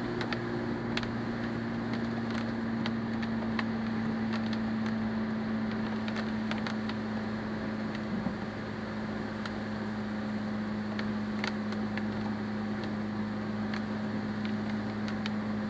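Car engine running at a steady cruise, heard from inside the cabin as a constant hum, over the hiss of tyres on a wet road and rain, with scattered faint ticks.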